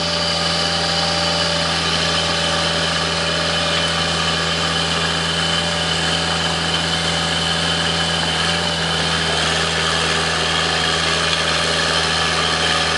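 Horizontal directional drilling rig's engine running steadily under load with a steady, unchanging drone and a held whine, as the rig pulls its drill pipe back out of the bore during pullback of the geothermal loop pipe.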